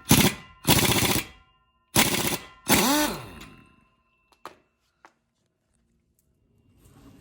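Impact wrench rattling in four short bursts within about three seconds, the last one winding down in pitch, as it loosens the fastening of a worn tie rod end. A couple of faint clicks follow.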